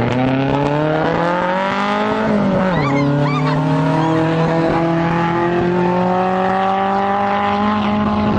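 Race car engine accelerating hard, its pitch climbing steadily, with a brief drop at a gear change about two and a half seconds in before it climbs again.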